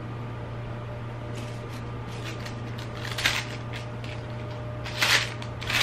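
Chewing with faint mouth clicks, then a paper bag and napkins crinkling in short bursts, about three seconds in and again near the end.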